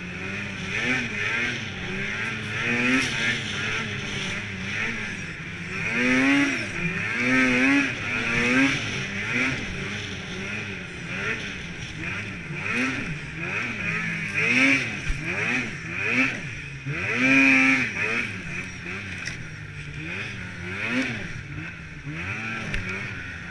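Snowmobile engine revving up and down again and again, rising and falling in pitch about once a second as the sled runs a rough, bumpy trail, over a steady rushing noise.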